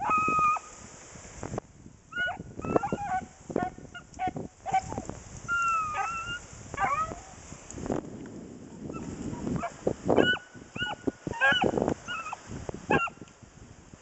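Hunting dog giving short, repeated yelps and bawls while working a trail through brush, with crackling of dry brush in between.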